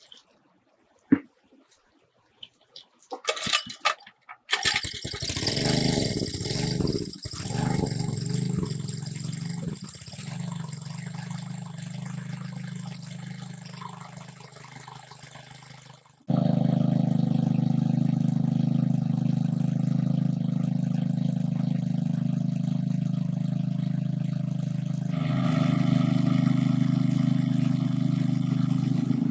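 A motor starts about four seconds in after a few short sputters and runs steadily, slowly fading; about sixteen seconds in the sound changes abruptly to another steady engine drone.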